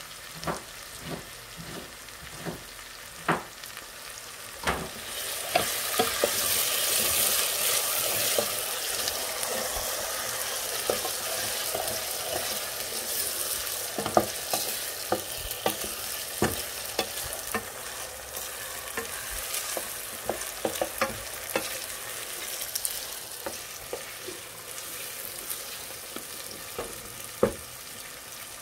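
Sliced onions frying in hot soybean oil in a pot, sizzling while a utensil stirs them and clicks and scrapes against the pot many times. The sizzle swells about five seconds in, then settles back.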